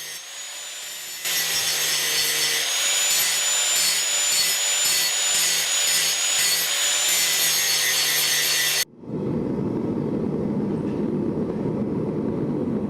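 Power grinder running against the steel of a hand-forged axe head, its motor whine wavering in pitch as the work is pressed on and eased off. About nine seconds in it cuts off suddenly, and a steady low rushing noise takes over.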